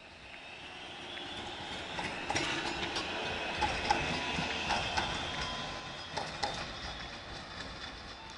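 A tram passes close by. Its wheels clatter over rail joints and points in a series of sharp knocks, over a high whine. The sound swells to a peak in the middle, then fades away.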